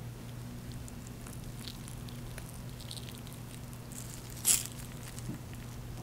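Thick melted white chocolate pouring from a glass bowl onto choux puffs, with soft wet pattering and squishing over a steady low hum. A single sharp click about four and a half seconds in.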